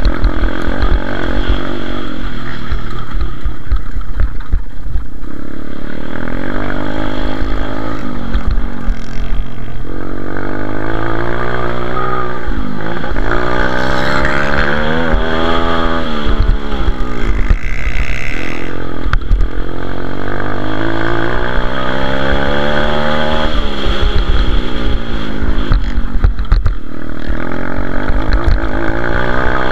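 Single-cylinder four-stroke pit bike engine at race pace, its pitch repeatedly climbing as it revs hard and dropping away as the throttle closes or the gears change. Low wind buffeting and knocks from the rough dirt track run underneath it.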